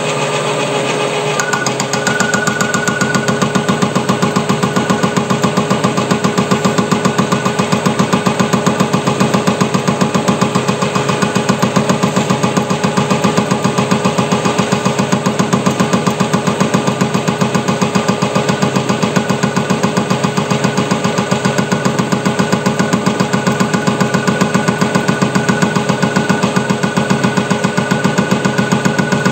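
Metal lathe running with a rapid, regular knocking as the carbide turning tool takes an interrupted cut, machining a flat of a square drive. The cut grows louder about two seconds in and then holds steady over a thin whine.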